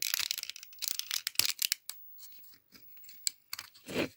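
Plastic smoke-detector housing and its small internal parts being pried apart and handled: irregular clicks, scratching and crackle, busiest in the first two seconds.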